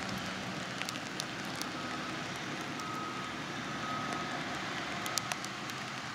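Switcher locomotive creeping slowly over snow-covered track, its diesel engine rumbling low, with scattered crackles and clicks and a faint high squeal that comes and goes.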